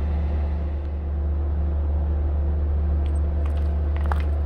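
A steady low mechanical rumble, like an engine running, with a faint regular pulse, and a few light clicks near the end.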